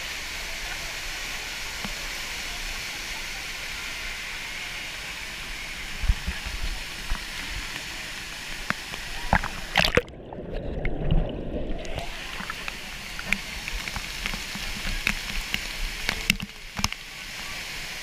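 River waterfall rushing and splashing around a camera held in the white water, with louder splashes from about a third of the way in. About ten seconds in, the camera goes under the surface for a couple of seconds and the sound turns muffled and bubbly, then the rushing water returns with more splashes.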